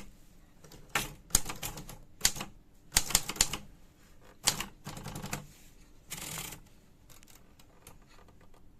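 Smith-Corona Corrector 12 typewriter being typed on: separate sharp key strikes, some in quick runs, over the first five seconds. About six seconds in there is a half-second rasping burst, followed by a few faint clicks.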